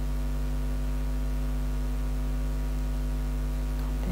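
Low, steady electrical mains hum. A faint tap or two near the end.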